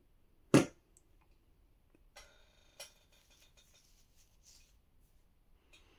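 Handling noises from unboxing a phone: one sharp tap about half a second in, then a short scrape ending in a click between two and three seconds in, and a couple of faint ticks near the end.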